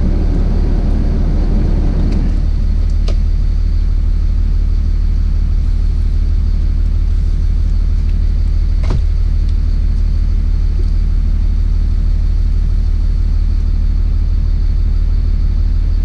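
Diesel motorhome engine idling, a steady low rumble heard from the driver's seat, keeping up vacuum for the dash vent controls. A couple of faint clicks come from hands working among the dash wiring and vacuum lines.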